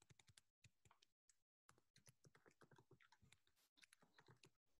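Very faint computer keyboard typing: a scatter of quiet, irregular key clicks.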